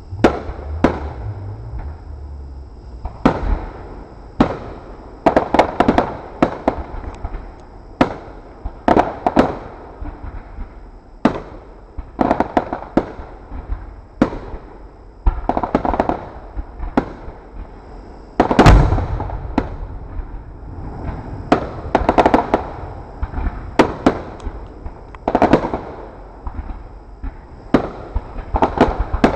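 Aerial fireworks bursting in quick clusters of sharp bangs and crackles, with the loudest boom about two-thirds of the way through.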